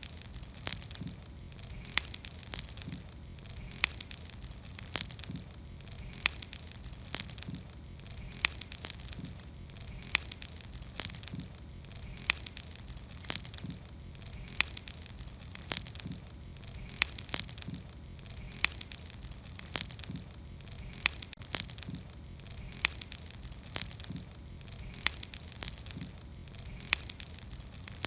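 Campfire burning with a steady low rumble and hiss, broken by sharp crackles and pops of burning wood every second or so.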